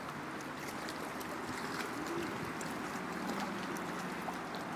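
Steady outdoor background noise with a faint low hum running under it and scattered light ticks.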